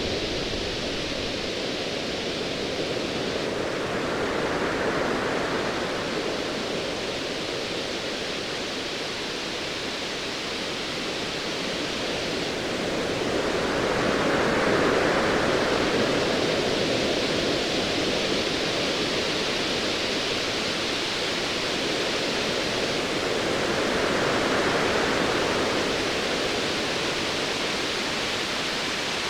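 Ocean waves washing in a steady hiss that swells and ebbs three times, about every ten seconds.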